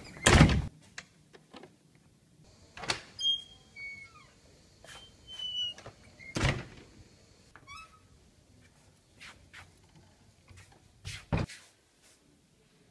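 A classroom door swung shut with a loud bang, followed by a few scattered knocks and several short, high chirps.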